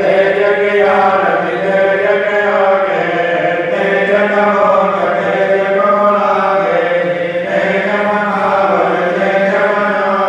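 Sandhya aarti, the evening devotional chant, being sung in a continuous melodic line over a steady held low note.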